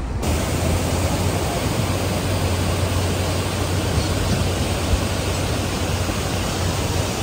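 Waterfall cascading over rocks close by, a steady loud rush of water that cuts in suddenly just after the start.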